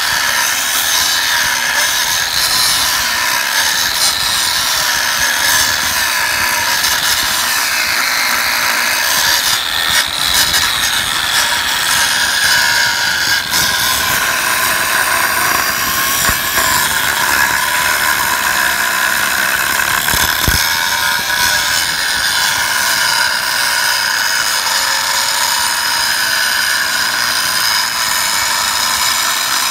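Angle grinder with a cutting disc cutting through a rusty steel H-beam: a loud, steady high whine and grinding hiss, its pitch wavering a little as the disc bites into the steel.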